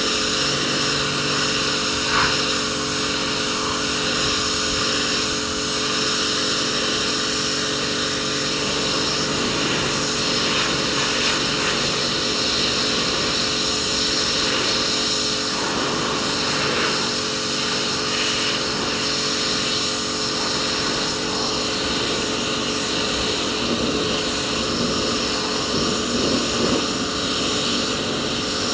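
Electric pressure washer running steadily: a constant motor-and-pump hum with an even hiss from the high-pressure water spray.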